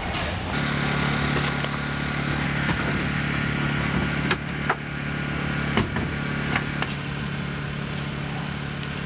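An engine idling steadily, starting about half a second in, with a few sharp clicks or clanks partway through.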